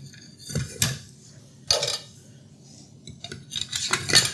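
Steel kitchen knives and packaging being handled around a wooden knife block: a few short clicks and rubs, then a longer run of scraping and rustling near the end.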